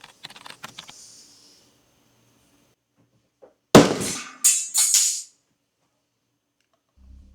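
An iPhone 14 Pro Max's glass screen being smashed: one hard, very loud impact, then two sharp crunching cracks about a second later. Light clicking fades out in the first second, and music comes in near the end.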